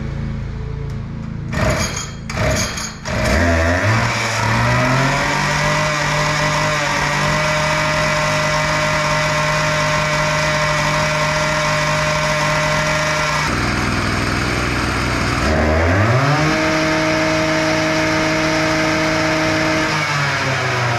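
A few knocks, then a lawn mower's small petrol engine revs up and runs steadily at high speed. It drops back for a couple of seconds, revs up again, and slows near the end.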